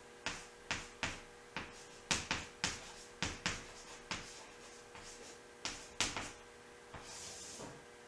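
Chalk writing on a chalkboard: a run of sharp, irregular taps and clicks as letters are stroked on for about six seconds, then one longer scratchy stroke near the end.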